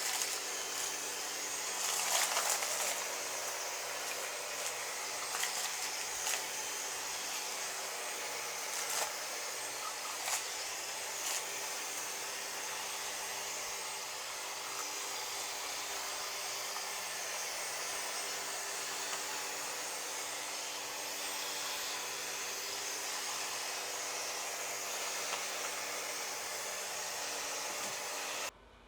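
Yeedi vac 2 Pro robot vacuum running, a steady whirring suction noise with occasional light clicks, cutting off abruptly near the end.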